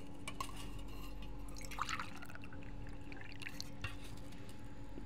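Water poured from a steel vessel into a steel tumbler, trickling and dripping in a few short spells, with light metal clinks.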